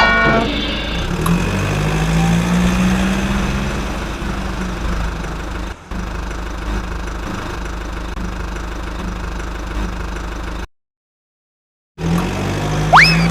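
Truck engine running, its pitch rising about a second in and then holding steady. It cuts off to silence for about a second near the end, then starts up again.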